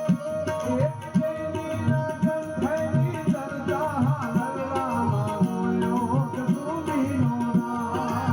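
Music from a Gujarati lullaby song: tabla strokes over a steady sustained drone, with a wavering melodic line entering about two and a half seconds in.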